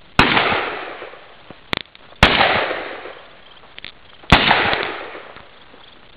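Three loud bangs about two seconds apart, each trailing off over a second or more, with a few fainter sharp clicks between them.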